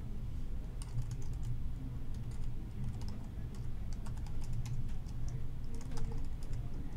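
Typing on a computer keyboard: irregular, light key clicks in quick runs, over a low steady hum.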